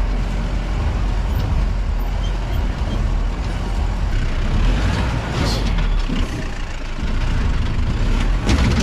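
Off-road jeep driving over a rough track, its engine running with a low steady rumble, and a few knocks and rattles about five and a half seconds in and again near the end.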